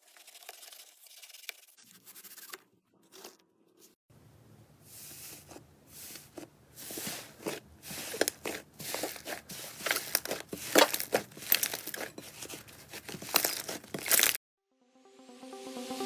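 Hands squeezing and kneading a large mass of fluffy slime, giving dense, wet crackling and popping clicks that grow louder. It opens with faint scratchy cutting of floral foam, and near the end the crackling cuts off suddenly, followed by a rising whoosh.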